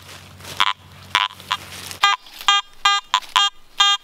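Garrett AT Gold metal detector sounding short, repeated beeps as the coil is swept back and forth over a buried target. There are a couple of beeps early on, then a steady run of about two or three a second from halfway through: a solid, repeatable signal with a low target number.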